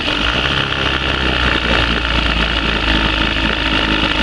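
1972 Evinrude 25 hp two-cylinder two-stroke outboard motor running steadily, just started from its newly fitted push-button starter.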